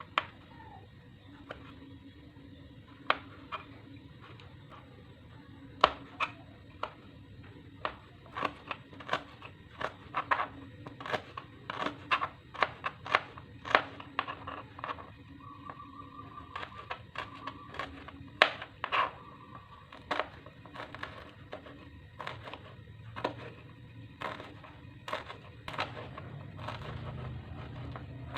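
Kitchen knife striking a cutting board in irregular sharp knocks, sparse at first and then about two a second, as ingredients such as chilies and shallots are sliced.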